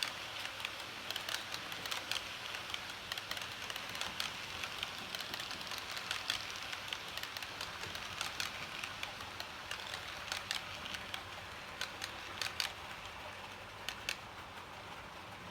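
H0-scale model train running on the track: a steady hiss of wheels and motor with many irregular sharp clicks as it rolls over rail joints.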